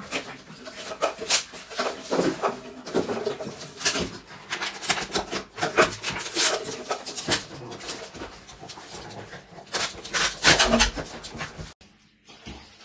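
A pug's plastic cone collar scraping and knocking against a wooden floor and a door as the dog shuffles along: irregular scrapes and bumps. The sound changes suddenly near the end.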